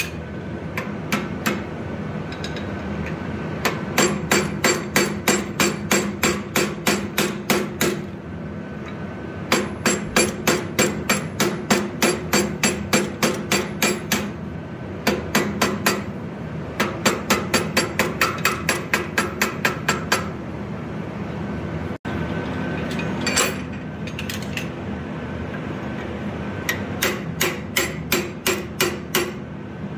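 Hammer tapping a steel punch against a small forged steel vulture figure held in a bench vise, in quick runs of sharp metallic blows, about three to four a second, with short pauses between runs. A steady hum sits underneath.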